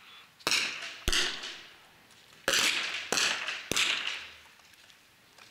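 Five .22 smallbore target rifle shots from several shooters on the firing line. Each is a sharp crack with a short echoing tail, two close together about half a second in and three more in quick succession from about two and a half seconds.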